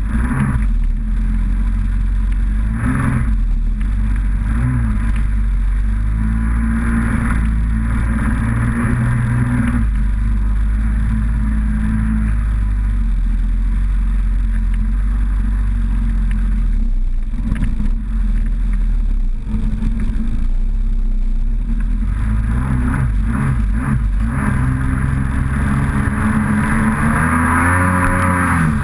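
Kawasaki SXR800 stand-up jet ski's two-stroke twin engine running under way, with spray and wind noise over it. The engine pitch rises and falls near the end.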